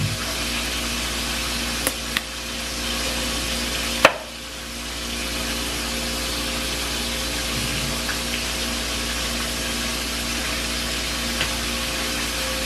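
Steady hiss of food frying in hot oil in a pan, with a low steady hum under it. A few sharp kitchen clicks sound over it, the loudest about four seconds in.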